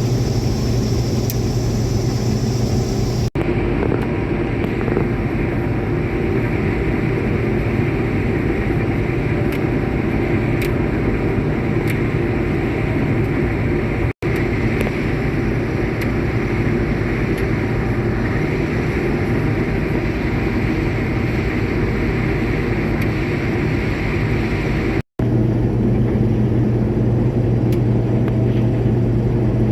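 Combine harvester running steadily while cutting soybeans: a constant engine and machinery drone with a strong low hum. The sound cuts out briefly three times.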